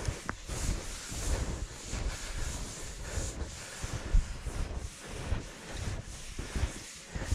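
Wind buffeting the microphone in uneven gusts, with a few soft knocks.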